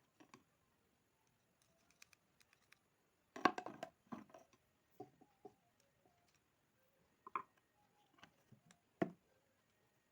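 Irregular faint clicks, taps and short scrapes of hands handling a small 775 DC motor during repair, the loudest cluster a few seconds in and a sharp tap near the end; the motor itself is not running.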